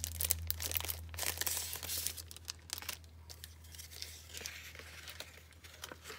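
Clear plastic packaging crinkling and tearing as it is pulled off an embossing folder and crumpled, in irregular crackles that are busiest over the first three seconds.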